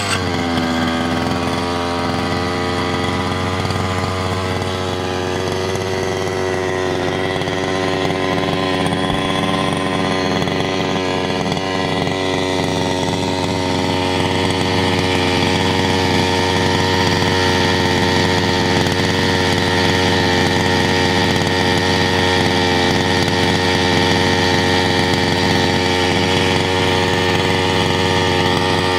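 HPI Baja 5B SS 1/5-scale RC buggy's two-stroke petrol engine idling steadily, settling from a rev into an even idle right at the start.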